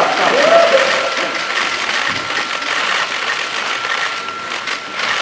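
Shutters of many press cameras clicking rapidly and overlapping, a continuous clatter of clicks.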